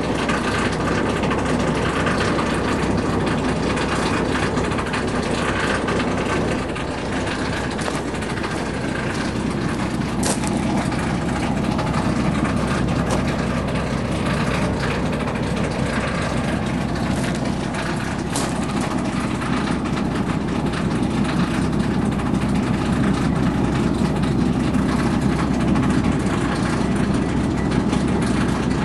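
Steady, continuous machine rumble with a hiss over it, with a couple of faint clicks about ten and eighteen seconds in.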